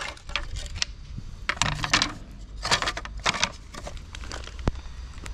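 Picture frames, some holding glass panes, clattering and knocking against each other as they are gathered up and stacked by hand, a string of irregular clicks and rattles with a sharp click near the end.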